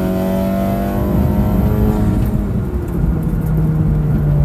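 Turbocharged 2.0-litre four-cylinder engine of a tuned Honda Accord 2.0T with a custom exhaust, heard from inside the cabin at full throttle near the end of a drag run. Its note rises slowly in pitch, then gives way to a lower, steadier drone about three seconds in as the car comes off the power.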